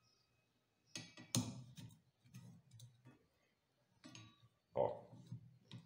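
Clicks and rattles of a windscreen wiper blade being worked loose from its wiper arm by hand. The sharpest clicks come about a second and a half in and again near the end.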